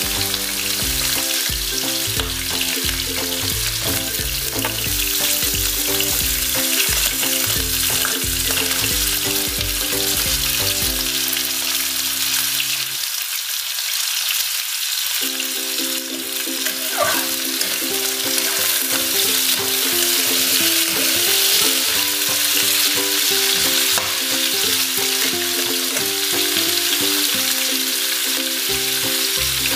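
Cubed potatoes and carrots sizzling steadily in hot oil in a nonstick frying pan, now and then turned with a metal ladle. Music plays low underneath.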